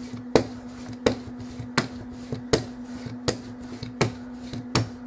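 Hand brayer rolled over and over across glossy photo paper in a lift-and-roll motion, a sharp tap about every three quarters of a second as it comes down on the paper, with fainter clicks between.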